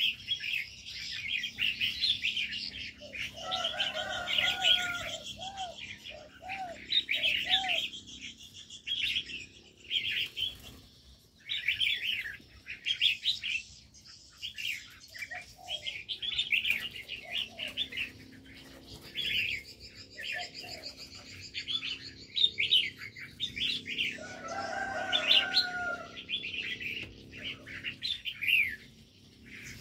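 Aviary birds chirping and twittering almost without pause. A lower-pitched call of a few repeated notes comes in twice, about four seconds in and again about twenty-five seconds in.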